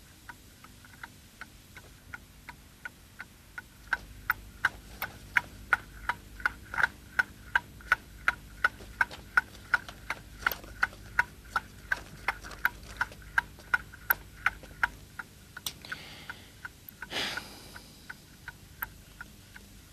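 A clock ticking steadily, about three ticks a second, louder through the middle stretch and fading near the end, marking exam time running out. A short rustle comes near the end.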